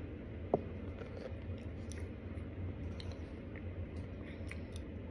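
Plastic spoon scooping and scraping in a plastic tub of powdered starch, with one sharp click about half a second in and scattered small clicks and crunches after it.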